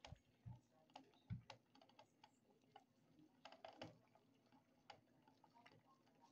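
Faint, irregular ticks and clicks of a glass Pyrex measuring cup rattling against the bottom of a pot of heating water on the stove.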